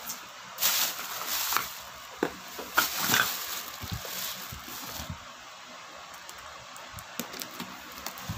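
Scissor blade slitting the packing tape along the seam of a cardboard box, with scraping and rustling of tape and cardboard in several short strokes. Quieter after a few seconds, broken by scattered small clicks, a cluster of them near the end.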